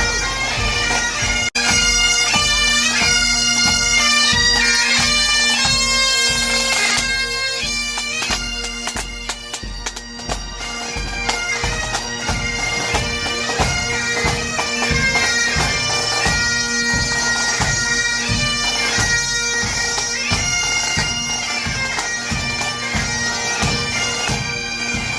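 Bagpipes playing a tune over their steady drones, with a drum beat underneath.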